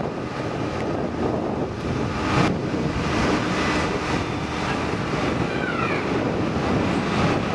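Wind buffeting the microphone: a steady rushing noise.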